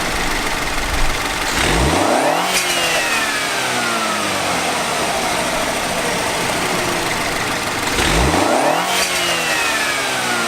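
2017 BMW X1 xDrive28i's 2.0-litre turbocharged four-cylinder engine, breathing through its stock paper air filter, revved twice from idle: about two seconds in and again about eight seconds in, each time rising quickly and then falling slowly back to idle.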